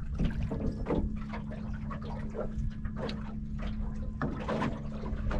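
Water slapping and knocking irregularly against the hull of a small boat, over a steady low hum and a constant low rumble.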